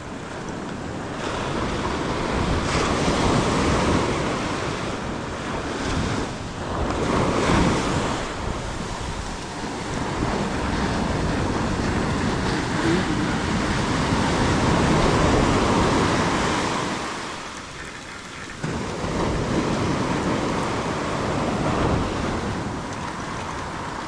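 Surf breaking and washing up the beach in slow swells, with wind buffeting the microphone.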